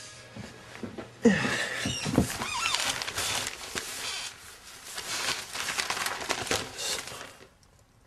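Newspaper pages rustling and crackling as a broadsheet is opened and leafed through, with a sharp knock and short creaks about a second in. The rustling stops shortly before the end.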